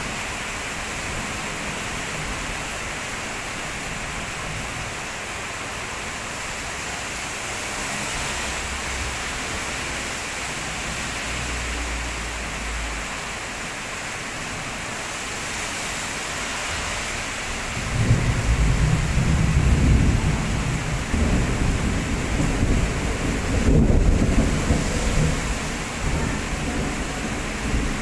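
Heavy tropical rain pouring steadily onto the road and the shop's surroundings. About two-thirds of the way in, a long, deep roll of thunder swells up, rumbles for several seconds and dies away under the rain.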